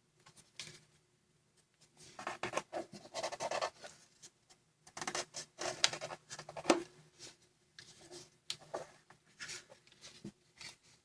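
A square of origami paper rustling and crinkling as it is folded and creased by hand, in three bursts of handling with short pauses between them.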